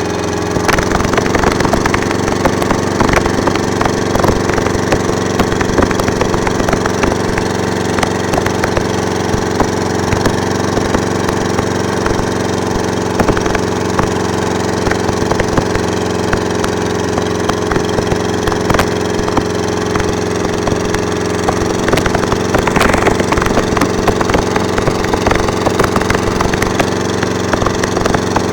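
A small engine running steadily, with dense irregular crackling and clicking over it.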